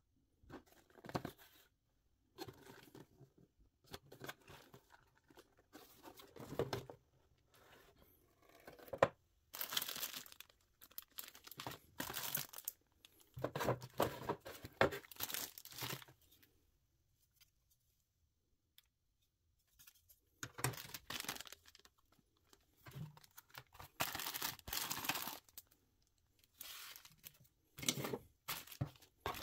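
Clear plastic bags of model-kit parts crinkling and rustling as they are handled and set down, in irregular bursts with a quiet pause about halfway through.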